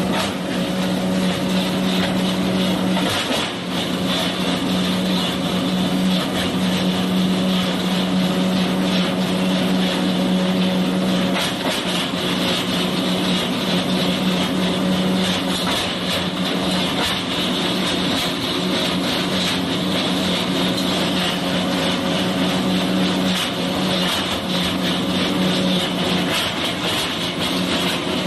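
Wood crusher running under load: a steady, loud mechanical hum with irregular sharp cracks and clatter throughout as wood is chipped and ground.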